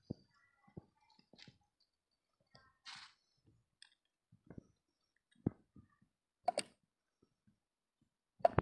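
Sparse small clicks and knocks of hands handling a diesel engine's fuel filter and its rubber fuel hose, with a short hiss about three seconds in and a louder knock near the end.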